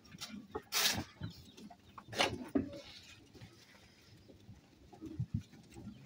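Sheep in a livestock pen at feeding time, with two short loud animal calls, one about a second in and a falling one a second or so later.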